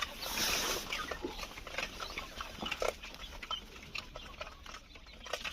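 A flock of laying quail making short, scattered calls and chirps, with clicks and rustling among them.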